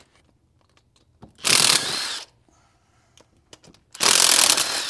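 Cordless impact wrench spinning out already-loosened cylinder head bolts, in two bursts of just under a second each, with a few light clicks of tool and socket in between.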